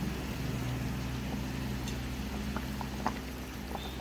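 Mustard-paste fish gravy boiling in a kadai, bubbling with small scattered pops over a steady low hum.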